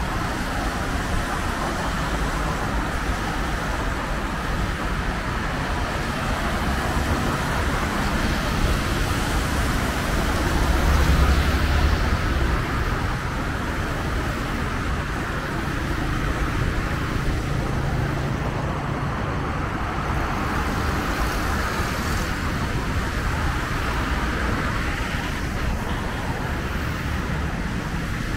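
Steady road traffic on a rain-wet road: cars passing with tyre hiss and engine hum. A vehicle passes louder and deeper about eleven seconds in.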